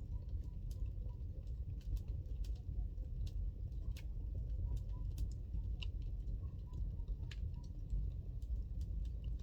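Wood fire burning in a fireplace: a steady low rumble with frequent sharp crackles and pops. Short runs of faint, evenly repeated high notes come through near the start and again about halfway.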